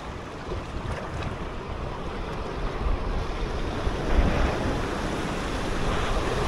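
Sea surf washing in over rocks, with wind buffeting the microphone. A bigger wave surges in about four seconds in.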